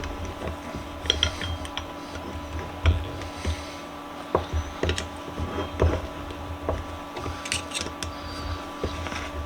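Scattered light metallic clinks and knocks as the parts of a small cast Dawn vise are handled and fitted back together, over a faint steady hum.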